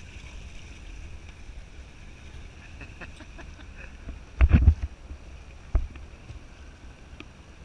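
Steady noise of a motorboat under way, its Mercury outboard mixed with wind and water noise. About four and a half seconds in there is a loud thump, and a shorter knock comes a second later.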